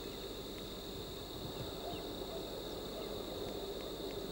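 Faint, steady outdoor grassland background: a constant high whine with a few faint, short chirps scattered through it.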